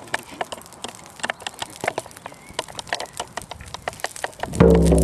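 Freshly lit brush fire crackling and popping in quick irregular snaps. Near the end a loud, deep ringing tone is struck and begins slowly fading.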